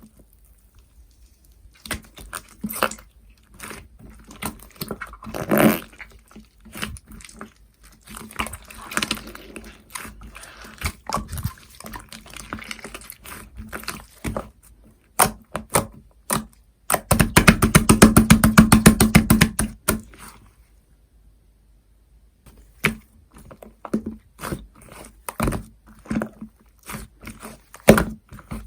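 Clay-mixed cream slime being squished, stretched and pressed by hand, giving wet squishes and crisp clicks and pops. About two-thirds of the way in comes a fast run of rapid clicking lasting a few seconds, then scattered clicks to the end.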